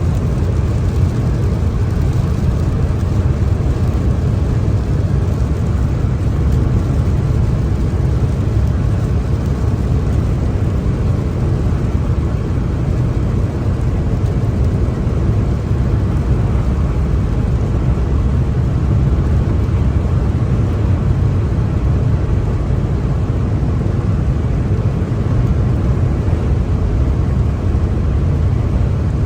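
Car driving on a wet motorway in the rain: steady, deep rumble of tyre and road noise.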